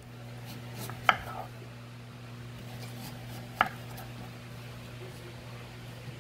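Kitchen knife slicing through a peeled sweet potato and striking a bamboo cutting board: two sharp knocks about two and a half seconds apart.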